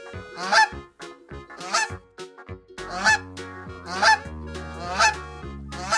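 Geese honking, about one honk a second, over background music whose low bass notes come in about three seconds in.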